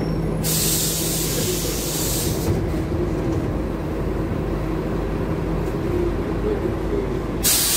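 Inside a Scania K250UB city bus, the rear-mounted Scania OC09 engine runs steadily with a low hum. A loud hiss of released compressed air starts about half a second in and lasts about two seconds, and a second one starts near the end.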